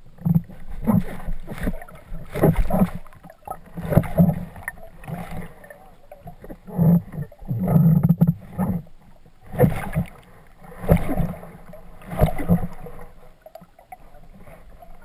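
Water sloshing and gurgling around a submerged camera, in irregular surges.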